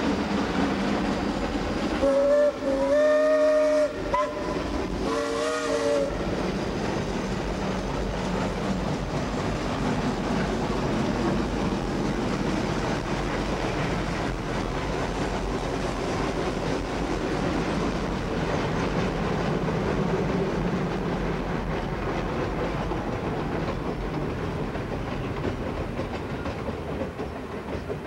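Steam locomotive whistle blown twice, a blast of about two seconds starting about two seconds in, then a shorter one a second later, over the steady rumble and rail clatter of the steam train running along the track.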